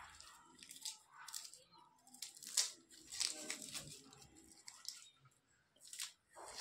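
Dry papery skin of a red onion being peeled and torn off by fingers and a small knife: a string of faint, irregular crackling rustles, the loudest about two and a half seconds in.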